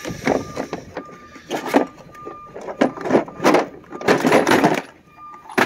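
Hard plastic tool-set cases knocking and scraping against each other as they are shifted around in a metal toolbox drawer, in a string of short, irregular clatters that are densest near the end.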